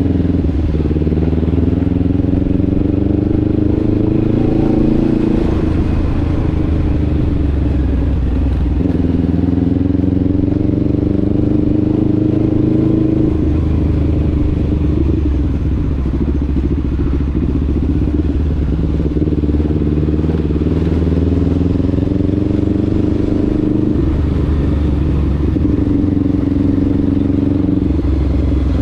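Motorcycle engine running under way. Its pitch climbs steadily over several seconds, then falls back, about five times over.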